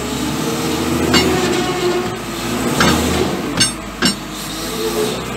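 New Holland W130 wheel loader's diesel engine and hydraulics running steadily with a whine. About four sharp, ringing clanks sound through it as the machine works with a loaded bucket.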